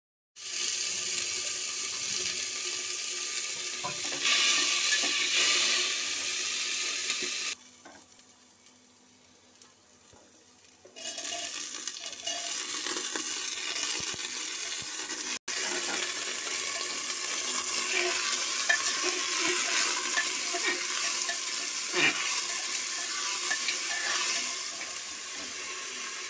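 Hot oil sizzling in a pressure cooker's pot as spices and then potato pieces fry, stirred with a spatula. The sizzle is loudest a few seconds in and dies down for about three seconds partway through.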